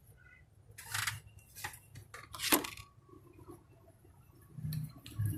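A few scattered sharp metallic clicks and clinks, as of hand tools and parts knocking against metal while a serpentine belt is worked onto an alternator and pulleys.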